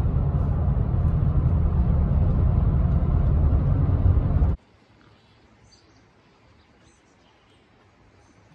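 Steady low road and engine rumble inside a moving vehicle's cabin, cut off abruptly about four and a half seconds in. After that there is faint outdoor quiet with a few soft bird chirps.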